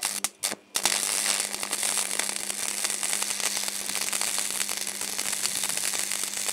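Stick (manual arc) welding with a small oil-cooled arc welder: the electrode arc sputters briefly a couple of times as it is struck, then catches and burns with a steady crackling sizzle over a low, steady hum as the rod lays the weld.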